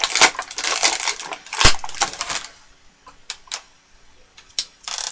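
Plastic toy packaging crackling and crinkling as a figure is worked out of it, with a sharp snap about one and a half seconds in. Then it goes quieter, with a few separate clicks and taps.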